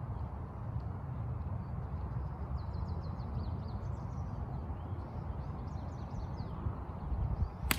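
A golf club strikes the ball on a tee shot near the end with one sharp crack. Before it there is a low steady rumble of wind on the microphone and faint bird chirps.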